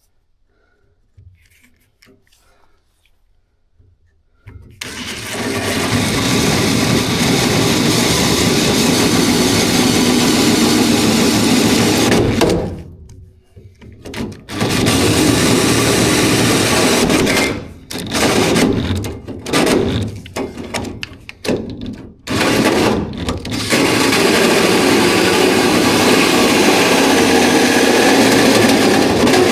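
Handheld power tool cutting into the car's dash, starting about four seconds in and running in long stretches, with a short stop and a run of quick on-off pulses in the middle.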